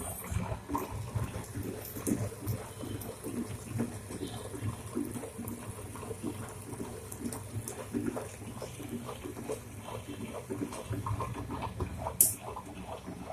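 Bajaj WX1 tabletop wet grinder running, its 150 W motor turning the drum against the stone rollers with a steady, uneven churning and a medium noise level. There is one sharp click near the end.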